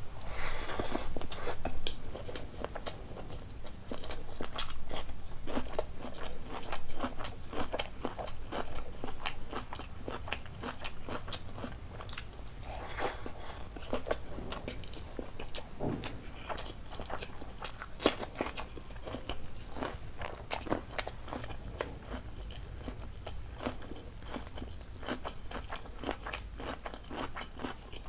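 Close-miked eating: a person biting and chewing food, a rapid, irregular run of small crunches and wet clicks, louder in the first seven seconds or so.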